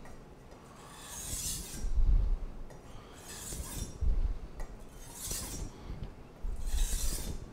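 Steel chef's knife swiped along a water-soaked 1,000-grit whetstone in four sweeping sharpening strokes, each a gritty scraping hiss, about one every one and a half to two seconds, with low bumps of the blade and stone between strokes.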